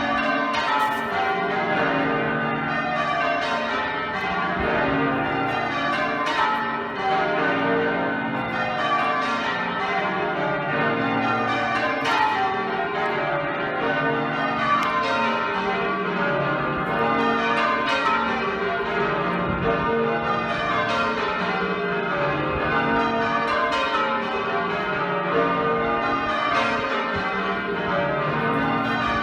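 Change ringing on Exeter Cathedral's heavy ring of twelve bells, tenor about 72 cwt. The bells strike in rows that run from the highest bell down to the lowest, over and over, their tones overlapping.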